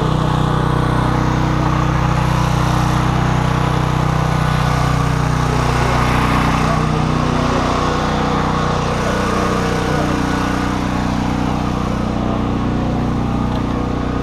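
An engine running steadily with a constant low hum, its pitch shifting slightly about halfway through.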